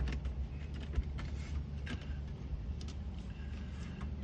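Plastic door moisture-barrier sheet being pressed back onto sticky butyl sealant, giving scattered light crinkles and clicks over a steady low hum.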